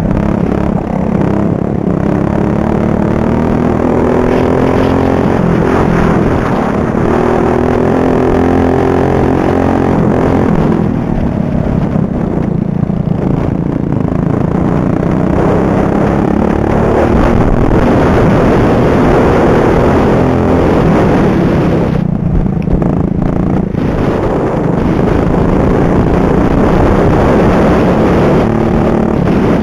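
Racing ride-on lawnmower engine heard onboard, run hard at high revs. The pitch climbs on the straights and eases off twice, a little under halfway and again about three-quarters of the way in, when the throttle is lifted.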